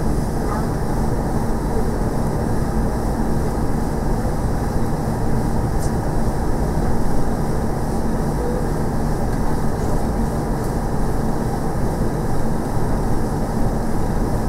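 Steady airliner cabin noise while the plane taxis after landing: a low rumble from engines and wheels, with a constant low hum running under it.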